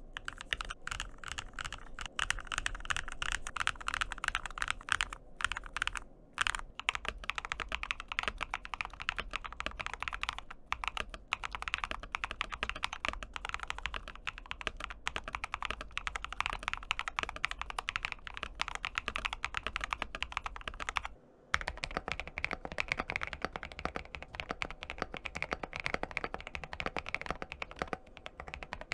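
Fast, continuous typing on custom mechanical keyboards. About 21 seconds in it cuts to a different keyboard whose keystrokes sound deeper.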